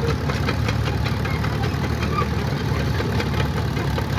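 Antique road grader's engine running steadily, a low rumble with a quick, even knocking beat.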